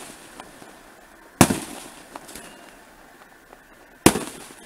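Two aerial fireworks shells bursting, each a sharp boom that trails off, about two and a half seconds apart, with a few faint pops between them.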